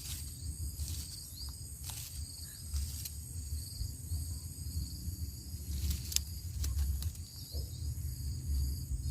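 Outdoor insects, crickets or similar, chirping steadily on several high tones over a low rumble, with a few faint clicks.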